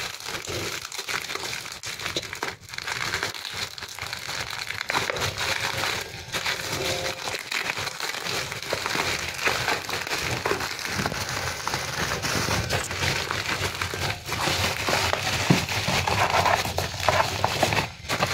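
Plastic bubble wrap crinkling and crackling as it is pulled and unwrapped by hand from a small box, a continuous busy rustle.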